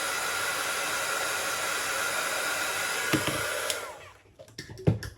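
Hot-air blower running steadily to dry off leftover cleaning alcohol, a rush of air with a faint whine in it. It cuts off about four seconds in, followed by a couple of light clicks.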